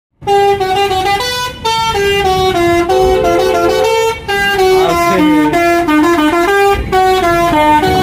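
Telolet horn on a coach bus playing a long tune: a quick run of short held notes stepping up and down in pitch, sometimes two notes sounding together, with brief breaks about a second and a half and four seconds in.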